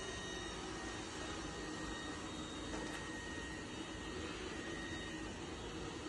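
Tikom L9000 robot vacuum running steadily at its low suction setting: an even whirring hum with a faint high whine.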